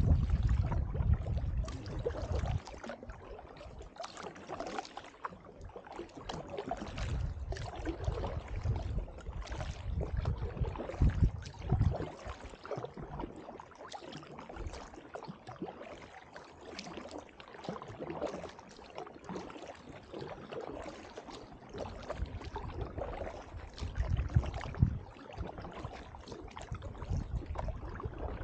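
Canoe paddles dipping and pulling through calm river water beside an inflatable canoe, with irregular splashing and dripping from the blades. Occasional low rumbles come through, heaviest at the start and near the end.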